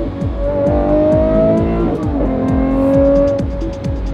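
Background music with a steady beat, over a Lamborghini's engine accelerating: its pitch rises, drops at a gear change about two seconds in, then holds steady.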